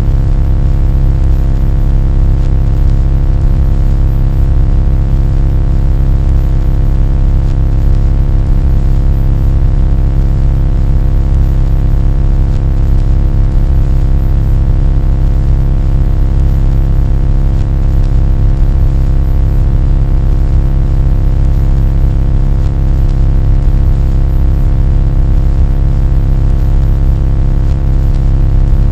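A loud, steady low drone with a stack of steady tones above it, unchanging throughout.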